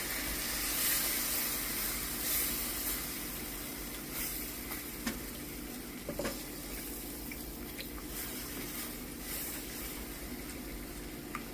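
Sausage gravy sizzling in a hot pan as milk and cream are poured in and stirred, with a few light clicks of the spoon against the pan. The sizzle slowly dies down as the liquid goes in.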